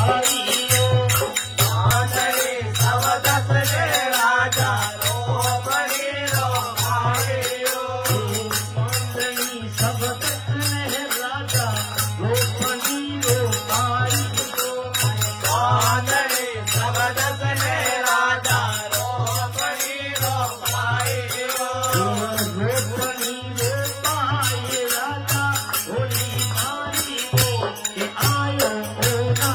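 Rajasthani devotional folk song (a Holi faagan geet): a male lead singer over harmonium, with a dholak beating an even rhythm and small hand percussion clicking quickly along.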